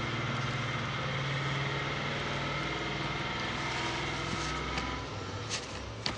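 A steady, engine-like motor hum runs under a constant hiss, shifting slightly in pitch about two-thirds of the way in. A few short, sharp clicks come near the end.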